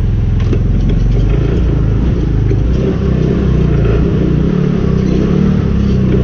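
Small go-kart engine running, its pitch rising and falling with the throttle as the kart moves.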